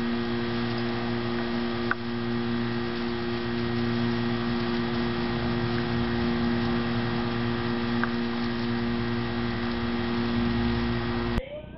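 A steady hum made of several held tones, with an even hiss behind it and faint clicks about two seconds in and again near eight seconds; it cuts off suddenly just before the end.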